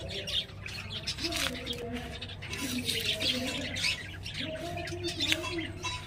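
Pet budgerigars chattering, a dense run of short, high squawks and chirps.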